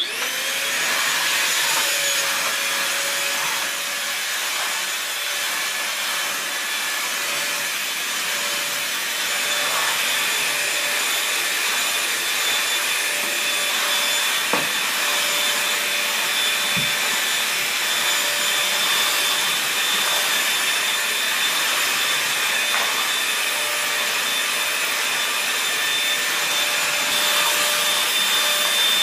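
Vacuum cleaner running steadily, its motor noise carrying a constant whine.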